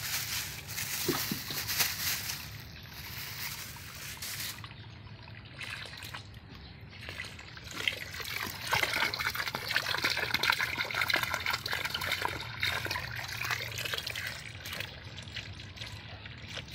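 Water trickling and pouring, loudest from about eight to thirteen seconds in.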